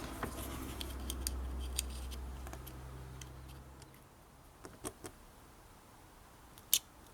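Small metal clicks and taps of a knife pocket clip and its screws being handled and fitted onto a folding knife, with a sharper click near the end. A faint low hum runs through the first few seconds.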